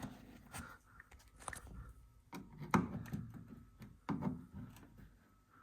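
Scattered light clicks, knocks and scraping of a plastic trim clip being pried and worked loose by hand.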